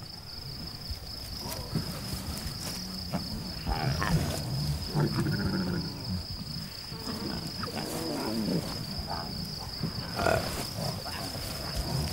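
A lioness gives low growls and grunts while her young lion cubs give short, higher mewing calls, over a steady high-pitched trill.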